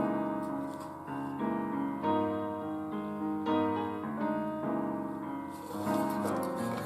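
Background piano music: a melody of steady, separate notes.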